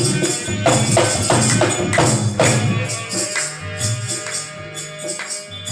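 Harmonium and dholak playing an instrumental bhajan passage with a metallic jingle over it. There is a run of hard drum strokes in the first two and a half seconds, then the drumming eases and the harmonium's held notes carry on more quietly.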